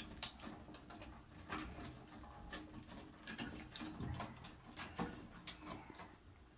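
Faint, irregular clicks and light knocks of elliptical trainer parts being handled and fitted at the console and handlebar post during assembly, over a faint steady hum.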